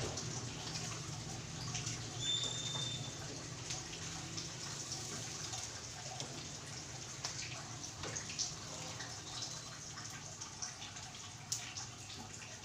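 Chicken pieces deep-frying in hot oil: a steady sizzle dotted with irregular crackles and pops.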